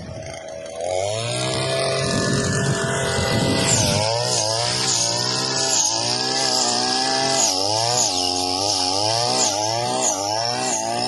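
Sugarcane harvester's diesel engine running hard, getting louder about a second in, its pitch dipping and recovering roughly once a second as it takes on load, with a steady high whine over it.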